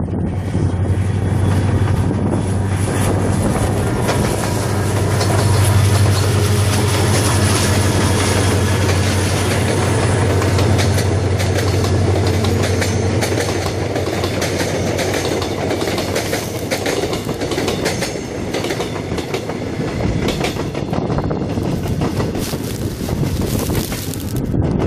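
Mugunghwa-ho passenger train hauled by a diesel locomotive passing close by. The locomotive's low engine drone is loudest about six seconds in and fades after about thirteen seconds, while the wheels keep up a clickety-clack over the rail joints as the carriages roll past.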